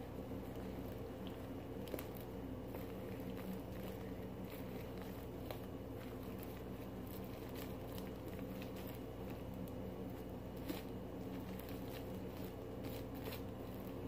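Faint sticky squishing and crackling of homemade slime being kneaded and mixed by hand, over a steady low hum.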